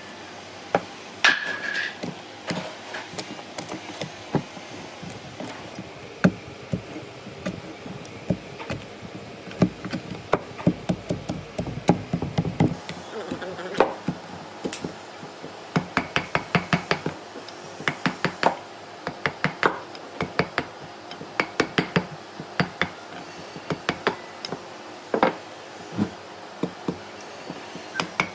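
Long chisel blade driven by hand into a rotten tree stump, chopping and breaking out the decayed wood: a run of sharp wooden knocks, often several a second.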